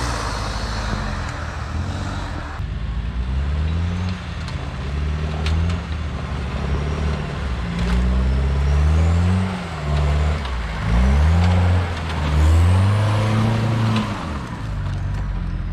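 Off-road 4x4's engine revving up and down over and over, its pitch rising and falling with the throttle, with several louder pulls partway through.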